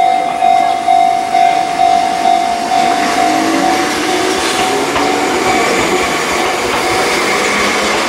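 Enoden electric train passing through a level crossing, with the crossing's warning bell ringing about twice a second. The train's motors whine up in pitch about halfway through, and the bell fades under the noise of the passing cars.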